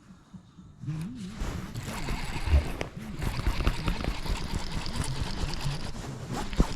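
Water splashing and knocks against the boat as a hooked bass is brought in, starting about a second in, with a sharp knock near the end.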